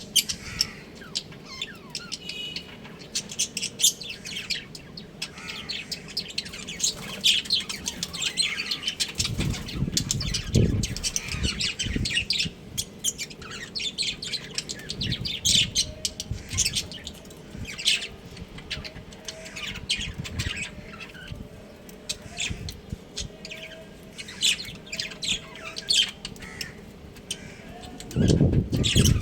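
A colony of budgerigars chirping and squawking, many short calls overlapping without pause. A few low thumps come about ten seconds in and again near the end.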